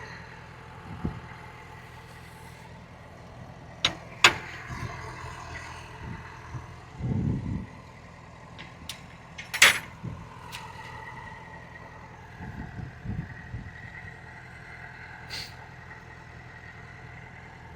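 An engine idling steadily, with a few sharp clicks or knocks, about four seconds in and again just before ten seconds, and a dull thump around seven seconds.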